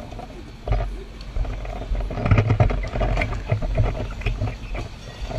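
Low rumble of running fire-engine motors with knocks and rustling from a 2 1/2-inch fire hose line being pulled off the hose bed and dragged, loudest a couple of seconds in.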